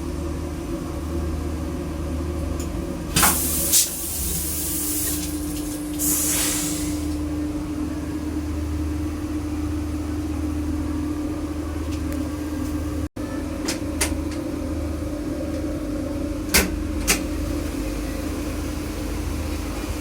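Steady rumble and hum of a moving diesel multiple-unit train heard from inside a passenger coach, with a couple of short hisses a few seconds in and two light clicks near the end.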